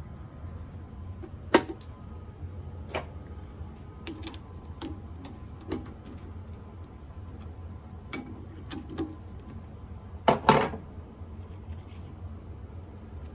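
Scattered sharp clicks and light knocks at irregular moments, the loudest a close double knock about ten seconds in, over a steady low hum.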